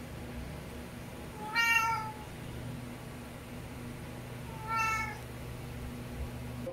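A house cat meowing twice, about three seconds apart, each meow short and high.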